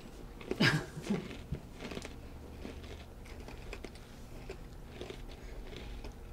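S'mores Oreo cookies being bitten and chewed close to the microphone: small irregular crunches and clicks. There is a brief voice sound about half a second in.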